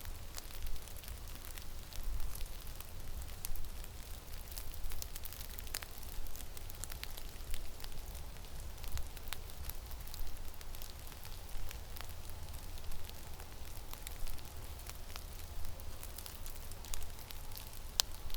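Blizzard wind buffeting the microphone in gusts as a low rumble, with many scattered small ticks and crackles throughout.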